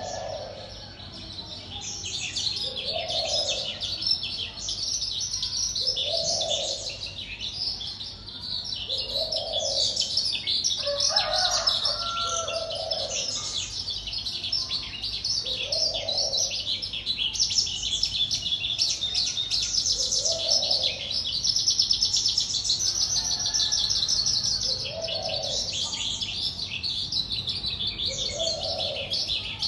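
A caged wild-caught songbird singing a long, fast, unbroken run of high chirps and trills. Underneath, a low, soft call repeats about every three seconds.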